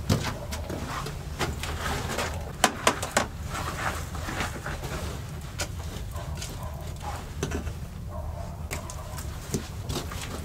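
A small shovel scraping and knocking in the ash and stones of a wood-burning stone fireplace, with scattered crackles from the fire. A cluster of sharp knocks comes about two and a half to three seconds in.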